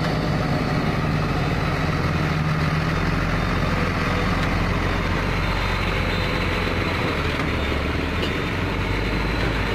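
Hino tronton dump truck's diesel engine running steadily at low revs as the heavy truck creeps and turns at walking pace.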